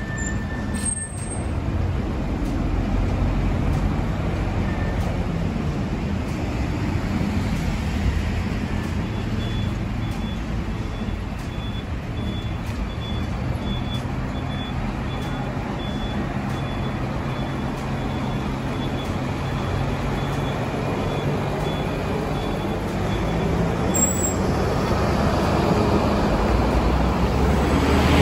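Large truck's diesel engine running steadily, with road traffic noise. A faint high beep repeats about once a second through the latter two-thirds.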